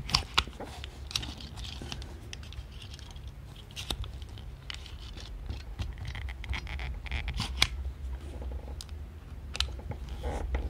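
Auto Nine .22 pocket pistol being racked and dry-fired in a function check after reassembly: irregular sharp metallic clicks of the slide and action, with hands rubbing on the metal. The slide is a little stiff to pull back.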